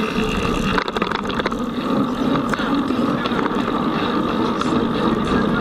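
Wind rush and tyre rolling noise of a mountain bike ridden at race pace, picked up by a camera mounted on the bike, with a cluster of rattles and knocks about a second in.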